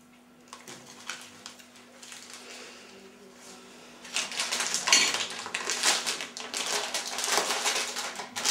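Crinkling and rustling of packaging being handled, beginning about four seconds in as a loud, dense crackle after a quiet start with a few faint clicks.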